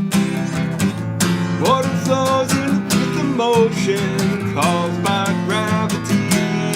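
Music: acoustic guitar strumming steadily, with a melody line that glides up into its notes over it.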